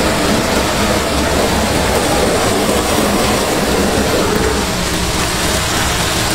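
Handheld butane gas torch burning with a steady roar as it sears chopped beef and mushrooms on a flat-top griddle, over the meat's sizzle.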